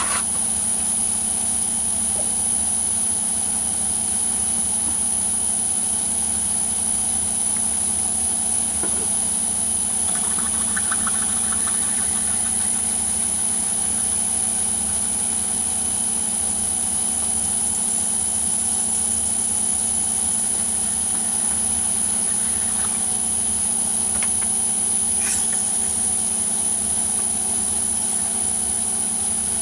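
Myford ML7 lathe running steadily at about 400 rpm while a cobalt drill in the tailstock bores through a hardened tool-steel collet chuck holder. There is a steady machine hum with a steady high-pitched whine over it.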